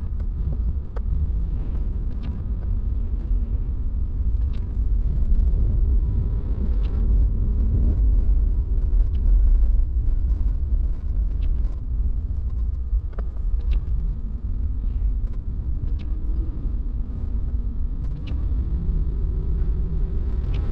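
Toyota HiAce van driving on a snow-covered road: a steady low rumble of engine and tyres, with faint, irregular ticks now and then.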